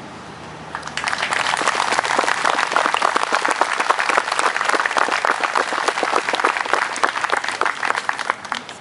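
Small crowd applauding, starting about a second in and stopping near the end.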